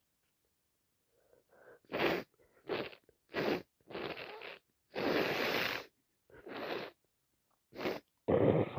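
A woman with a heavy, wet head cold sneezing and sniffling. After a quiet start comes a string of short breathy bursts from about two seconds in, with one longer burst in the middle.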